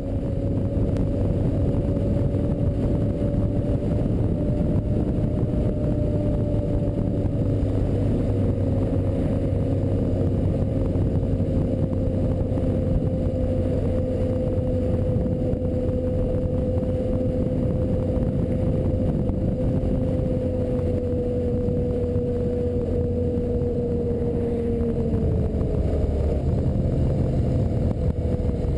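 Motorcycle engine running at a steady cruise, heard from the bike itself over heavy wind and road rumble. Near the end its note falls as the bike slows.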